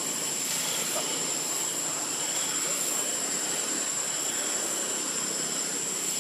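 Steady outdoor ambience: a constant high insect drone over an even rushing background noise, with faint higher chirps about once a second.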